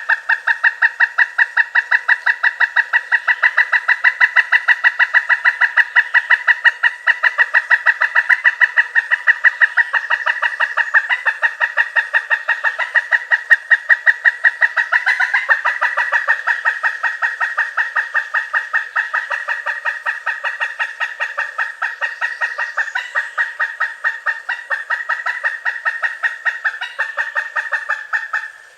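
Pileated woodpecker's cackling call: a long, fast series of loud, evenly spaced 'kuk' notes, about five a second, with a brief break about halfway through and again near the end.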